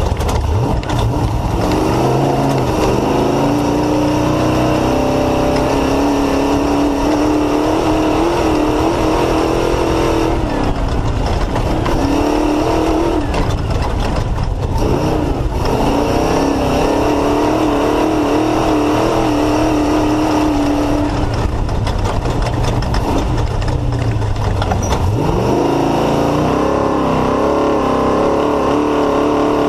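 Off-road race car's Mullenix Racing engine running hard under load, its pitch rising and falling with the throttle, dropping off briefly twice around a third and half way through and climbing sharply near the end. Constant rattling and knocks from the car over rough ground run underneath.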